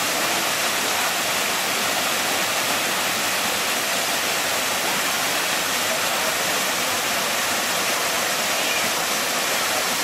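Steady rush of water from a tiered waterfall pouring over rock ledges.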